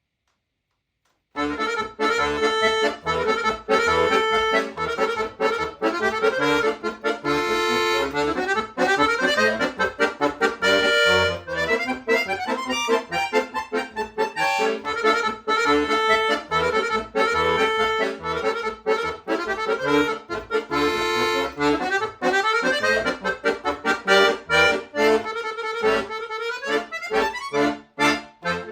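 Solo accordion starts playing about a second in after a silence: a lively piece full of rapid runs and chords, with short sharp-edged notes near the end.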